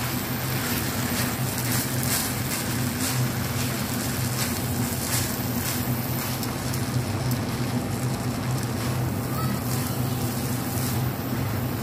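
Rice frying in a nonstick pan, sizzling steadily, with soft scrapes and taps as a silicone spatula stirs and turns it, over a constant low hum.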